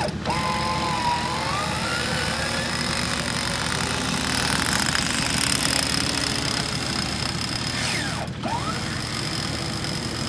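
Electric front-bumper winch on a Toyota Land Cruiser 80 Series running under load, reeling in its cable to drag a stuck SUV out of the mud: a steady mechanical whine with gear rattle over the running engines.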